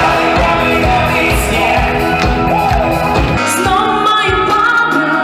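Live music with a singer over a band, with a steady beat that drops out about three and a half seconds in, leaving held notes and the voice.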